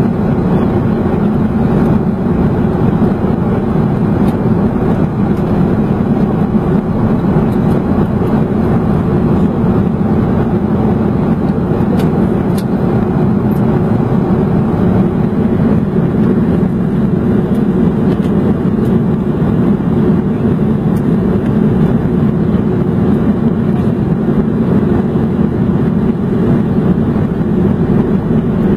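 Jet airliner cabin noise heard from a window seat during descent: a steady, loud rush of engines and airflow.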